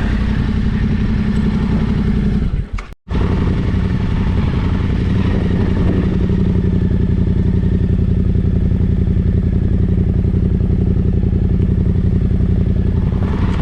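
Motorcycle engine running at a steady idle, with no revving. The sound cuts out for an instant about three seconds in.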